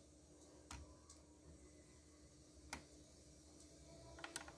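Near silence broken by a few faint, isolated clicks, with a quick run of them near the end: a small screwdriver and plastic parts being handled inside an opened Gigabyte W251U laptop.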